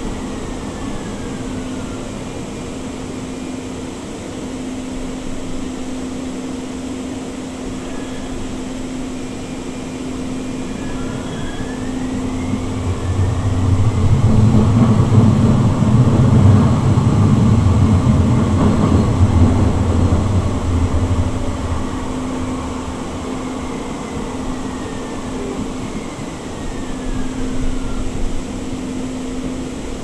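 Siemens S200 light rail vehicle running, heard from inside the car: a steady hum with faint whining tones from its IGBT-VVVF traction drive that rise and fall in pitch as it speeds up and slows. A louder low rumble builds up from about the middle for several seconds, then eases off.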